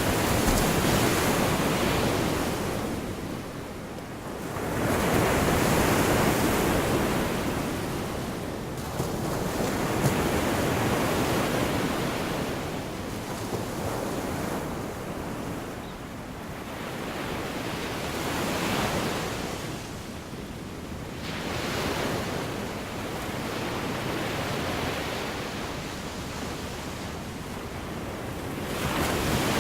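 Gulf of Mexico surf washing onto the beach, a steady rush that swells as each wave breaks and fades as it draws back, every several seconds.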